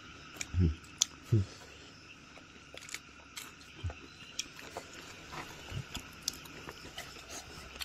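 People eating rice and fish by hand off a banana leaf: chewing and scattered small clicks, with three loud thumps in quick succession about a second in.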